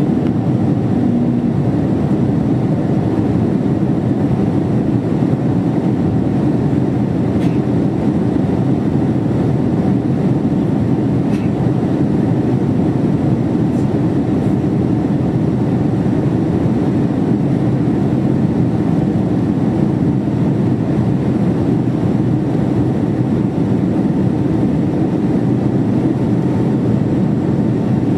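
Steady cabin noise inside a Boeing 767-300ER on approach with flaps extended: a loud, even, low rush of airflow and engines heard through the cabin wall.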